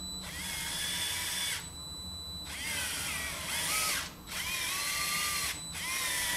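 A CADA micro-motor driving the steering of a motorized LEGO Technic truck, whining through its gears in four short runs of about a second each as it turns the front wheels one way and back. The pitch slides as each run starts and stops.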